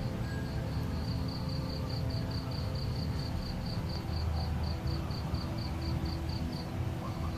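Cricket chirping in a steady rhythm, about five short high chirps a second at one unchanging pitch, stopping shortly before the end, over a low rumble and faint sustained tones.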